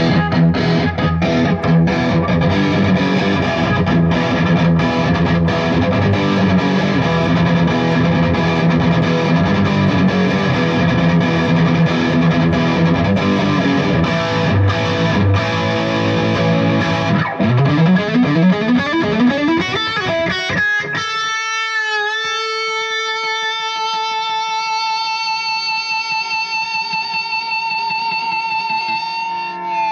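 Suhr Modern electric guitar played with distortion from a Jackson Audio ASABI pedal and reverb and delay from a Plethora X3, heard through a GoPro Hero 9's microphone. Busy picked phrases give way to a rising slide about seventeen seconds in, then a final chord rings out with a brief dip in pitch and slowly fades.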